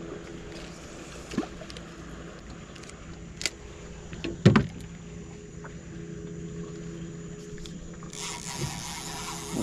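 Steady low hum of a boat engine, with a few light knocks and one louder thump about halfway through. A hiss comes in near the end.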